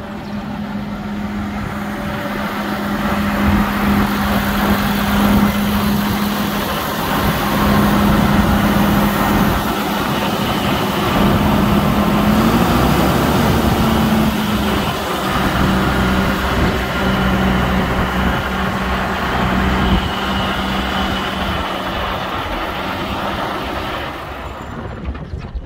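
Case IH Magnum 340 tractor's diesel engine running steadily, its pitch rising slightly for a moment about halfway through.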